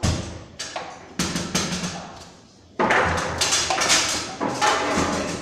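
Table-football play on a Bonzini table: sharp wooden-and-metal knocks as the ball is struck by the figures and the rods slam. A few separate knocks come first, then a brief lull, then a fast run of knocks from a little under three seconds in.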